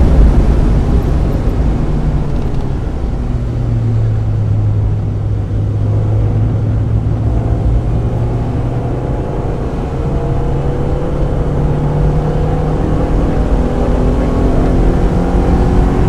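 1995 Mazda Miata's 1.8-litre four-cylinder engine heard from inside the car, with a heavy low rumble of road noise. The engine holds one steady note for several seconds, then rises in pitch as the car accelerates over the second half.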